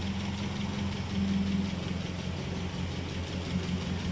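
Citroën DS ID19 four-cylinder engine, swapped into a Citroën Traction 11BL, idling steadily and running smoothly.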